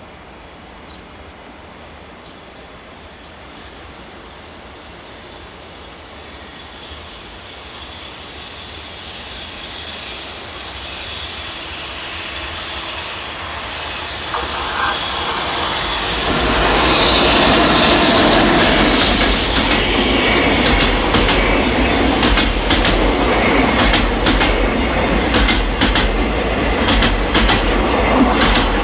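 A JR Freight EF210 electric locomotive hauling a container freight train, growing steadily louder as it approaches, then passing close by with its container wagons. The passing wagons make a loud rumble of wheels on rail, with rapid clacks over the rail joints.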